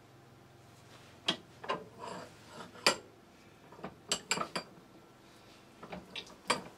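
Metal parts clinking and tapping as a turned, threaded stem is fitted and screwed into its mating piece held in a vise: a string of sharp clinks with light ringing, several in quick succession about four seconds in.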